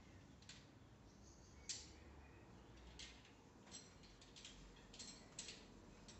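Faint, scattered clicks and light metallic clinks at irregular intervals, roughly one or two a second, from a rock climber's harness gear and moves on the rock, over a low steady hum.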